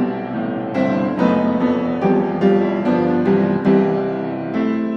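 Background piano music: a slow melody over held chords, a new note struck about every half second.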